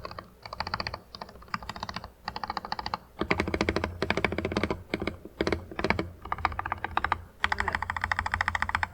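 Typing on a Royal Kludge RKG68 mechanical keyboard fitted with Akko CS Starfish switches and PBT XDA keycaps: rapid runs of key presses in spurts with short pauses between, getting louder about three seconds in.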